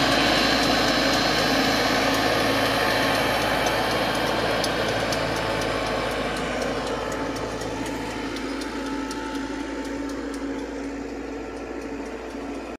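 An engine running steadily with a low, even hum, gradually fading over several seconds.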